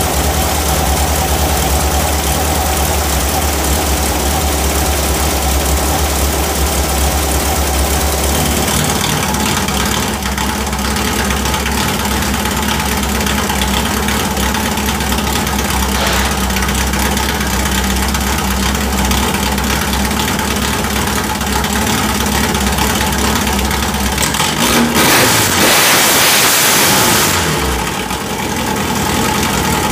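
Volkswagen Beetle's air-cooled flat-four engine idling shortly after a cold start. Its low note changes about eight seconds in, and near the end it is revved once, rising briefly and then settling back to idle.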